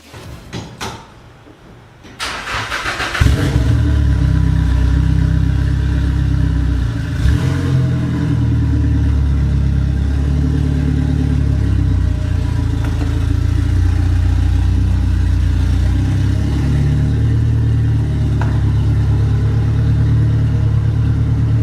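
Nissan 240SX engine cranking briefly, catching about three seconds in, then idling steadily.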